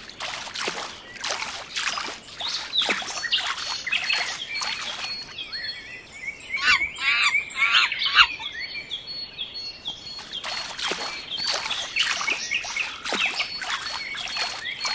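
Birds chirping and twittering: many short quick calls, with a denser run of rising and falling notes about seven to eight seconds in.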